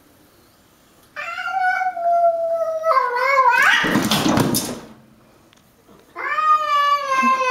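Cats caterwauling in a territorial standoff: a long wavering yowl starting about a second in, a short, loud, harsh noisy outburst around the middle as the house cat lunges and paws at the glass, then after a pause a second long wavering yowl near the end.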